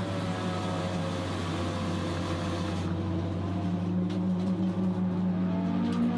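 Toyota Starlet Glanza EP91's four-cylinder engine at speed, heard from inside the stripped race car's cabin. The note eases off about three seconds in, then its pitch rises again near the end as the car accelerates.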